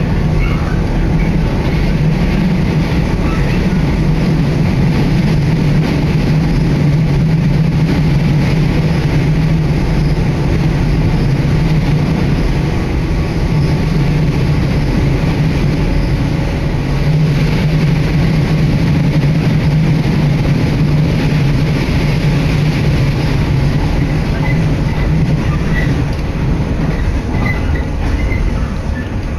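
Running noise of an electric train heard from inside the carriage while it travels at speed: a loud, steady rumble of wheels on rail with a low hum that fades for a few seconds midway and then returns.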